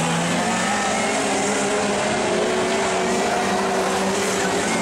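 Winged sprint car engines running hard on a dirt oval, a loud steady engine note that slowly rises a little in pitch.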